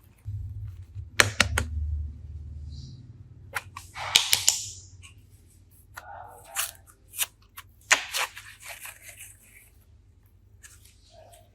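Handling noises: a series of sharp clicks and snaps with short stretches of crinkling, over a low hum during the first few seconds.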